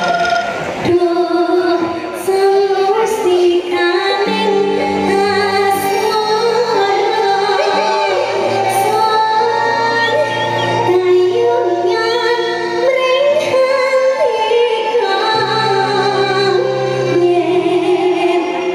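Live Javanese campursari music in an acoustic set: a female voice sings a wavering, ornamented melody over a gamelan-and-band ensemble with held bass notes.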